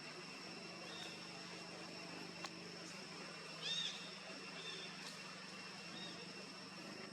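A monkey giving several short, high-pitched squeaky calls, the loudest a little past halfway, over a steady high insect drone.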